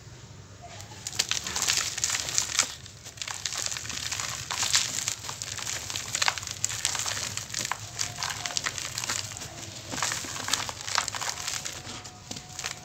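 Dry cement-and-sand clumps crumbled and crushed by hand, a dense gritty crackling and crunching as the pieces break and the grains fall and sift through a plastic colander. It is quieter for the first second, then busy with sharp crunches throughout.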